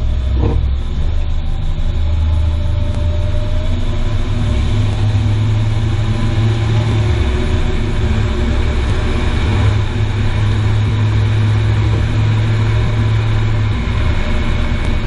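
Car on the move: a steady low rumble of road and running gear under an even hiss of tyre noise, the kind of drive used to listen for an underbody noise.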